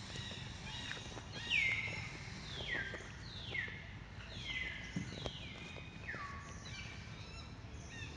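An animal calling in a regular series: about one high chirp a second, each sliding down in pitch and ending in a short level note, the loudest about a second and a half in and the rest fading toward the end, over steady outdoor background noise.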